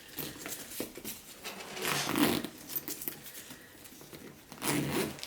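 Rustling and rubbing as a new pebbled-leather handbag is handled and worked open, with a louder stretch about two seconds in and another near the end.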